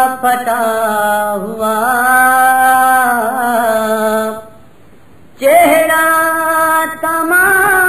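A man's voice chanting an Urdu noha lament unaccompanied, in long held, slowly wavering notes. The voice breaks off for about a second in the middle and then starts a new phrase.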